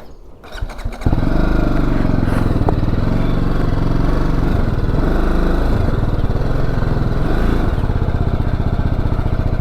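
BMW G310GS single-cylinder engine running at low revs as the motorcycle is ridden slowly, coming in strongly about a second in and holding steady with small rises and dips in pitch.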